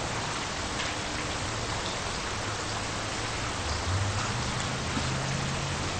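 Steady, even hiss like static, with a faint low hum coming in about four seconds in.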